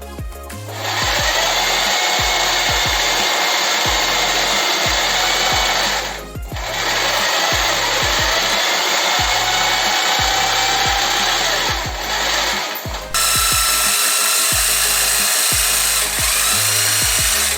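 Electric power tool running in long bursts, its motor whine drifting up and down, with short pauses about six seconds in and again around twelve seconds. Background music with a bass beat plays underneath.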